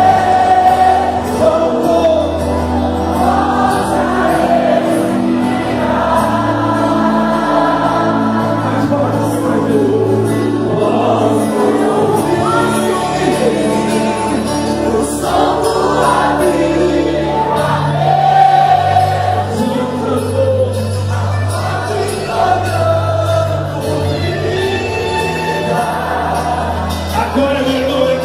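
Live gospel band playing, with a group of voices singing over held bass notes.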